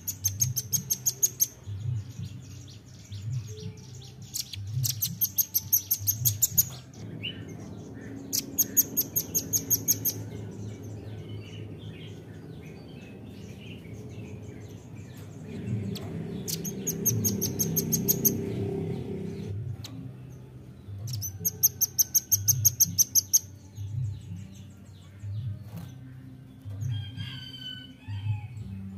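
Velvet-fronted nuthatch calling: about five trills of rapid, hard, evenly repeated high notes, each a second or two long, with pauses of several seconds between them.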